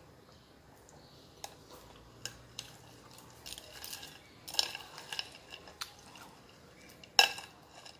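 Metal spoon scooping through crushed ice in a glass bowl of chè Thái, clinking and scraping against the ice and the glass in scattered clicks, busiest around the middle, with one sharp clink near the end.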